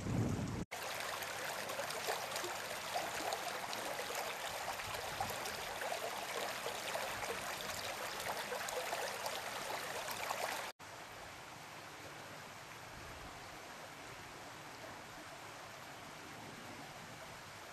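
Shallow brook running over stones, a steady rushing. About eleven seconds in it drops suddenly to a quieter rush. Wind rumbles on the microphone in the first moment.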